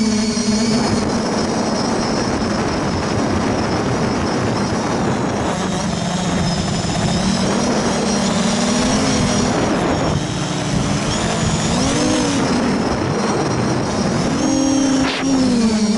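Quadcopter's four Sunnysky 2212 1400Kv brushless motors spinning 8x4.5 propellers in flight, a steady buzz whose pitch rises and falls with the throttle, with quick swoops about twelve seconds in and near the end.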